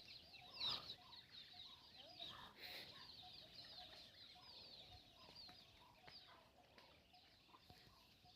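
Faint chorus of young poultry peeping: many short, high, falling chirps a few times a second, with soft lower calls underneath, fading over the stretch.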